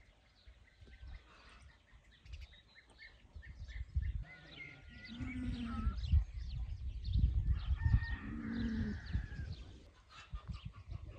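Chickens calling, with two drawn-out calls a few seconds apart, over many short chirps of small birds and a low rumble.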